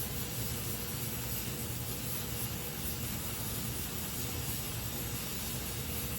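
Gas welding torch flame hissing steadily during flame welding of aluminium.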